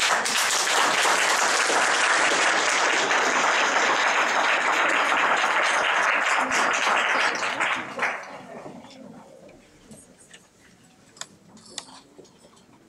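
Audience applauding, dense and steady for about eight seconds, then dying away to a few scattered claps.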